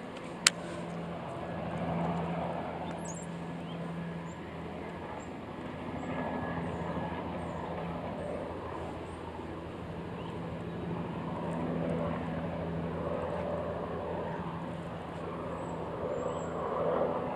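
Steady low hum of distant motor traffic that swells and fades several times, with faint high chirps over it and a single sharp click about half a second in.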